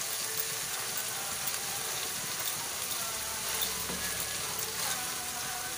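Chopped pechay (bok choy) and corned beef sizzling steadily as they sauté in a frying pan, with a spatula stirring through the greens.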